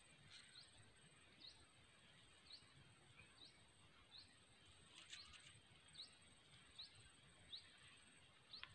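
Near silence, with a faint high chirp, each one short and rising, repeated about once a second, and a few faint clicks.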